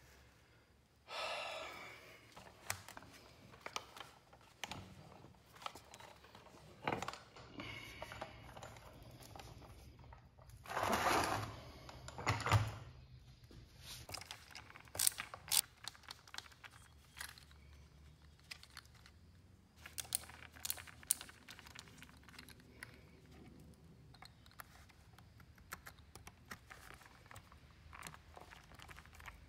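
Irregular light clicks, taps and knocks of small hard objects being handled, with two brief rushing or scraping noises: one about a second in, a louder one around the middle.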